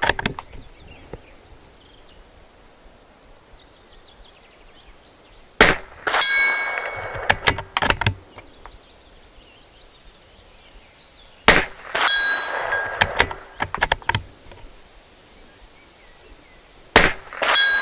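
Three suppressed .22 LR rifle shots, firing Remington Thunderbolt ammunition, about five and a half seconds apart. Each shot is followed by a short metallic ring, typical of a steel target being hit, and by the clicks of the bolt being worked.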